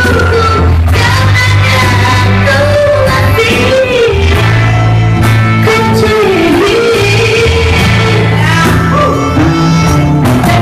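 A live band playing a song with a woman singing the melody over acoustic guitar, violin and keyboard, with low held notes underneath and a steady beat of light percussion.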